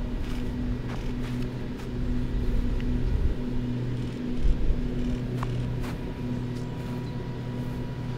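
Steady low mechanical hum, like a running engine or machine, with low rumbling gusts of wind on the microphone.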